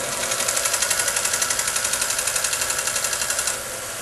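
Steel chisel being ground on a running vertical belt sander to polish its bevel to a sharp edge: an even grinding that pulses about ten times a second. It stops suddenly about three and a half seconds in as the chisel is lifted off, leaving the sander's steady running noise.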